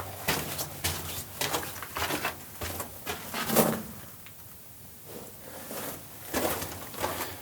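Footsteps crunching on the rock and gravel floor of a mine tunnel, about two or three steps a second, pausing briefly about four seconds in before starting again.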